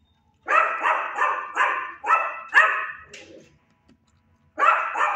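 A dog barking: a quick run of about five sharp barks, then after a short pause two more near the end.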